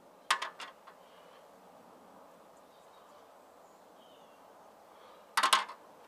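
Crossbow bolts being pulled out of a denim-covered foam backstop: two short scraping bursts, one just after the start and one near the end. Faint bird chirps sound in between.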